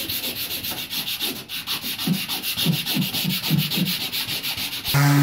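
Sanding block rasping over a fiberglass boat hull in quick, even hand strokes, about eight a second. Just before the end a power sander's steady hum abruptly takes over.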